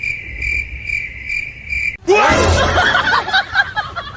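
Cricket-like chirring, a steady high trill, for about two seconds; it stops abruptly and a louder, wavering voice-like sound with laughter follows.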